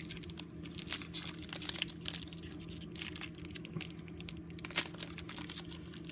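Foil wrapper of a football trading-card pack crinkling in many small crackles as hands work it open.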